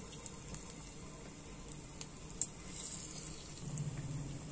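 A battered cauliflower pakora frying in hot oil in a metal pot: a faint, steady sizzle with scattered small crackles and one sharper pop midway. It is a single test pakora dropped in to check how hot the oil on a medium flame has become.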